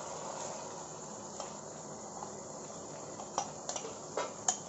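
Chicken and masala sizzling steadily in oil in a karahi as whisked yogurt is poured in, with a few light clicks, twice near the start and several near the end.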